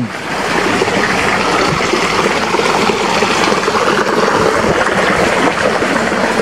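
Water running in a small ditch: a steady rushing trickle.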